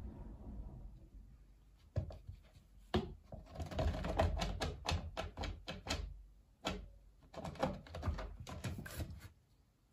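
Cat clawing at a sisal-rope scratching post: quick runs of scratchy clicks, with a couple of single thumps of its body against the post and its wooden base board before the clawing starts.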